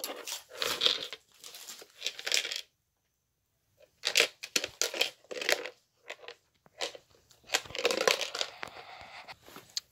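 Irregular rustling, scraping and knocking of hard objects being handled, in short bursts with a pause of about a second in the middle.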